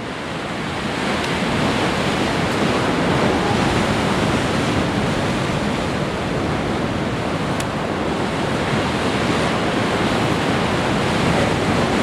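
Ocean surf breaking on a rocky shore, a steady rush of noise mixed with wind, fading in over the first second.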